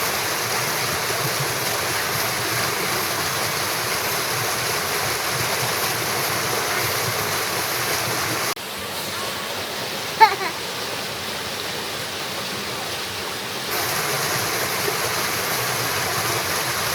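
River water rushing steadily. About halfway through it drops quieter for around five seconds, and a brief high call sounds in that quieter stretch.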